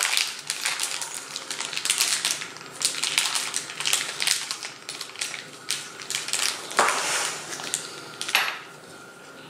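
Clear plastic bag crinkling and rustling as it is handled in the hands, in quick irregular crackles, with two louder crackles near the end.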